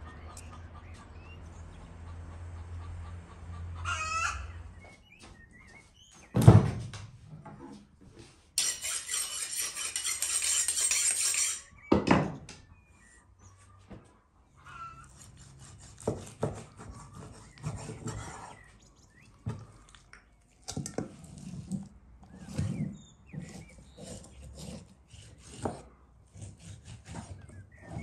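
A rooster crows once about four seconds in, over a low hum. Two heavy thumps come a few seconds apart with a stretch of hissing between them, then a long run of light, irregular knocks and scrapes as raw beef is cut with a knife on a wooden cutting board.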